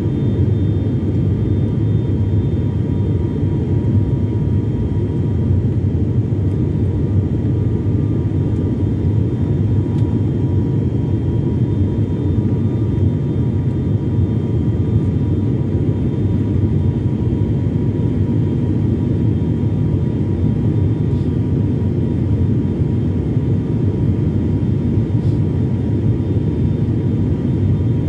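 Cabin drone of an ATR 72-600's twin Pratt & Whitney PW127 turboprop engines and propellers in flight, heard from inside the passenger cabin. It is a steady, deep rumble with faint, even whining tones above it.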